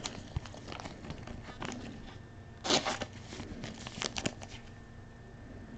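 Faint handling noise of trading-card packaging: a few short crinkles and rustles of plastic or paper, with small clicks, about three seconds in and again about four seconds in.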